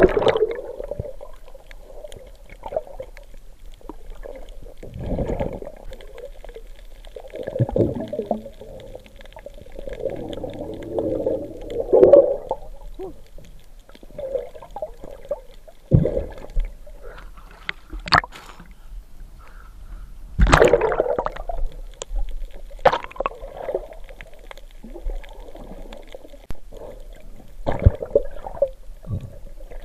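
Muffled underwater noise heard through a submerged camera: water gurgling and sloshing in swells, with several sharp knocks along the way.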